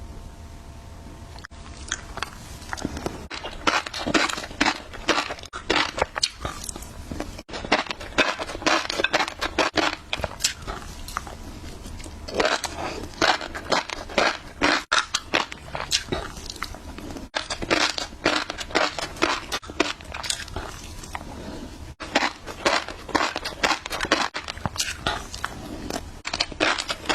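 Close-miked eating of fish roe: clusters of crisp crunching and crackling bites with chewing, broken by several abrupt cuts.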